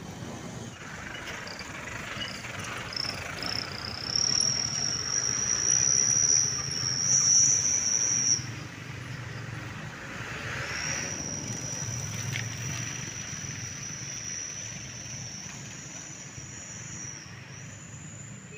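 Passing road traffic, a bus and motorcycles with engines running low, under a high, steady whistling tone held for about four seconds and then again for about seven, the first louder, stepping slightly in pitch.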